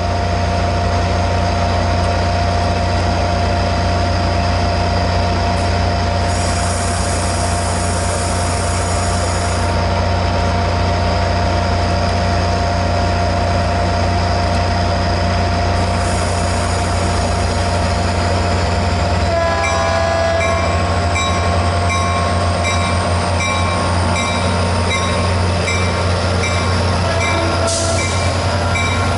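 Caltrain diesel locomotive running with a heavy, steady low rumble and a steady whine, with two spells of high hiss. About twenty seconds in, the sound shifts and a short ringing tone starts repeating about every 0.7 s, with a slowly rising high whine behind it.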